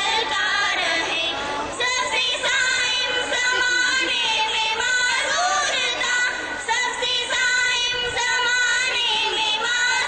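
A group of girls singing a song together into microphones, heard through a public-address system.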